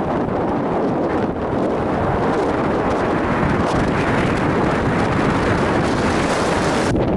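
Strong wind buffeting the microphone: a steady, dense rush. The hiss in the upper range drops away abruptly near the end.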